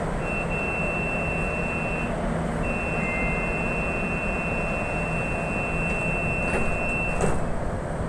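MRT-3 train car's door-closing warning tone: a steady high beep that sounds for about two seconds, breaks off briefly, then sounds again for about five seconds. Near the end it stops as the sliding doors shut with a knock. A steady low hum of the standing train runs underneath.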